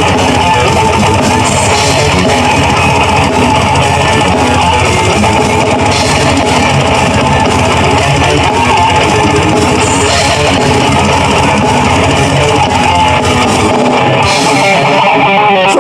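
Live heavy metal band playing, with loud guitars in a dense, unbroken wall of sound.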